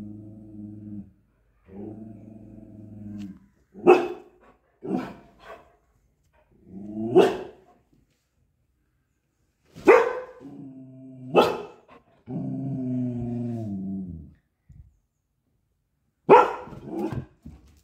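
Golden retriever growling low and barking at her own reflection in a window pane: drawn-out growls alternate with about eight short, sharp barks, several in quick pairs.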